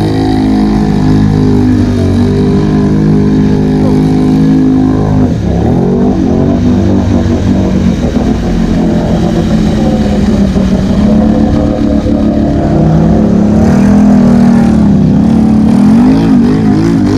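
ATV engine under load in deep mud, holding a fairly steady drone for about five seconds, then revving up and down repeatedly.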